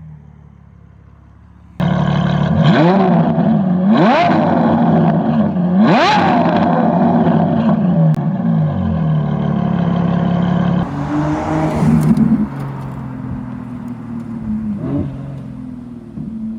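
Ferrari 812 Competizione's V12, breathing through a Novitec exhaust, accelerating hard. The note climbs steeply three times in quick succession, then settles into a steady run and eases off in the last few seconds.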